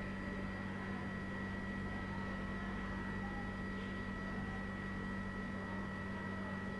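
Steady low hum with even hiss and a faint high whine: background room tone.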